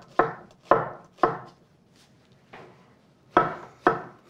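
Chef's knife chopping halved shallots into fine dice on a wooden cutting board: three strokes about half a second apart, a pause of about two seconds, then two more strokes.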